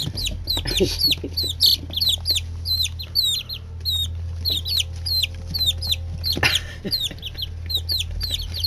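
A group of nine-day-old chicks peeping, many short high-pitched peeps several a second without a break, over a steady low hum. A brief scuffing noise about six and a half seconds in.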